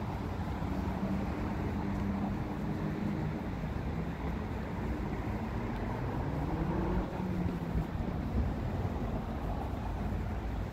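Town-centre traffic: vehicle engines running in a steady low rumble, with one engine rising in pitch as it speeds up about six seconds in.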